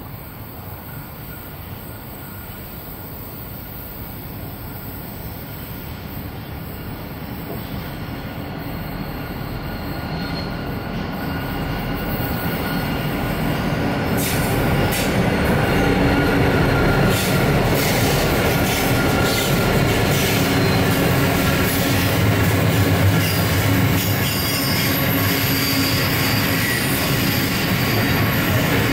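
Freight train headed by two Pacific National 81 class diesel-electric locomotives approaching and passing: the sound grows steadily louder over about the first fifteen seconds, then the wagons roll by with repeated wheel clicks over rail joints and some wheel squeal.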